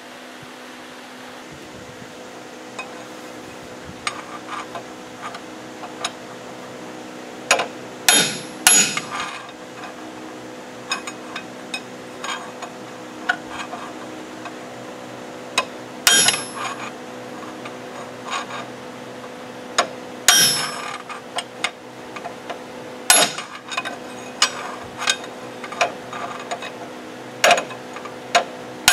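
Hammer blows on a steel drift rod set against a shaft and bearing inside a lathe's cast-iron headstock: about eight hard metallic strikes at irregular intervals, some in quick pairs, with lighter taps between, over a steady hum.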